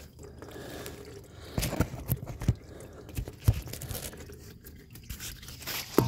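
Automatic transmission fluid dribbling out of the opened tailshaft housing of a TorqueFlite transmission into a plastic catch tub. From about a second and a half in, handling knocks and scrapes sound close by, the sharpest just before the end.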